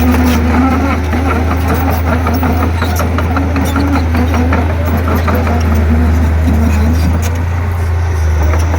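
Komatsu D31P crawler bulldozer's diesel engine running with a steady low drone, its pitch wavering slightly, with frequent sharp clicks and clanks over it.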